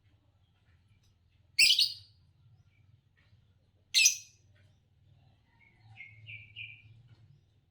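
Green Fischer's lovebird giving two loud, shrill single chirps about two seconds apart, then a softer quick run of three or four short chirps near the end. A faint steady low hum sits underneath.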